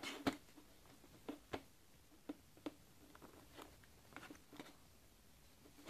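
Titanium fork tapping and scraping on a plate while cutting into a doughnut: a string of faint, irregular clicks, the sharpest just after the start.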